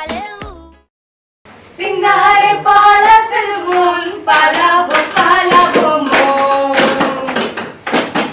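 Two young women singing a song together, with sharp taps through the singing. A short tail of music fades out at the start, and the singing begins after a brief gap.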